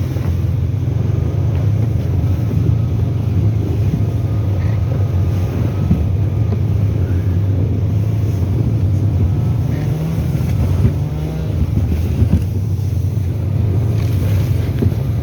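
Off-road vehicle engine running steadily under load while driving over rough, bumpy forest ground, with a low drone that rises slightly in pitch partway through.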